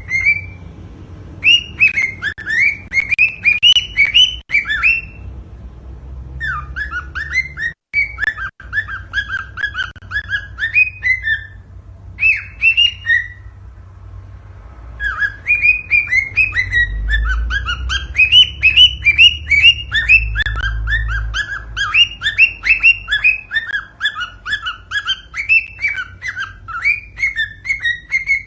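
Cockatiel singing: fast runs of repeated whistled chirps, broken by two short pauses, one about five seconds in and one about thirteen seconds in.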